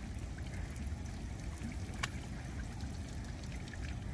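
Water trickling and lapping around a kayak, over a steady low rumble, with one sharp click about two seconds in.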